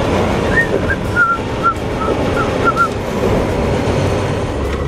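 Honda CBR600 sport bike's engine running as it is ridden, with steady road and wind noise. Over it, from about half a second in, a string of about nine short high whistled notes for some two seconds.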